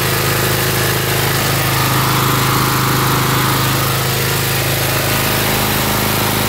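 Honda GX390 single-cylinder petrol engine of a 4000 psi pressure washer running loudly and steadily.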